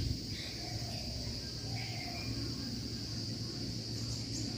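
Steady high-pitched chirring of insects over a low steady hum.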